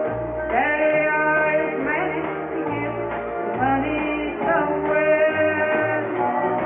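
A woman singing karaoke into a handheld microphone over a recorded backing track.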